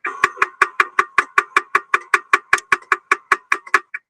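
Rapid, evenly spaced percussive clicks with a ringing pitch, about five or six a second, in a steady unbroken rhythm.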